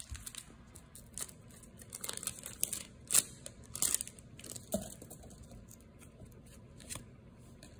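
Foil wrapper of a Pokémon booster pack crinkling and tearing as it is pulled open and handled, in short sharp crackles that are loudest about three to four seconds in.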